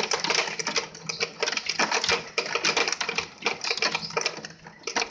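Heavy rain striking window glass and the sill: a dense, irregular clatter of sharp taps.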